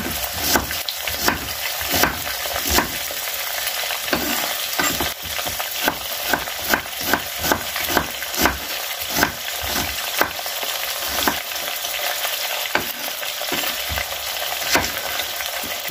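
Chicken wings sizzling steadily as they fry in a pan, with a kitchen knife striking a wooden cutting board in irregular sharp taps as an onion is sliced into half-rings.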